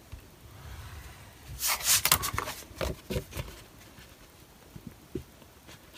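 Thin cereal-box cardboard being rubbed and handled: a low rubbing at first, then a loud crackling rustle about two seconds in, followed by a few light taps.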